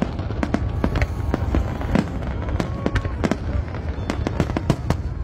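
Fireworks display: a rapid, irregular barrage of aerial shell bursts, several bangs a second, over a steady low rumble.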